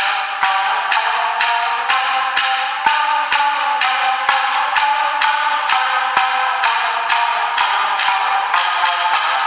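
Two tsugaru shamisen played in duet, a driving rhythm of sharp plectrum strikes on the drum skin about twice a second over the ringing plucked notes.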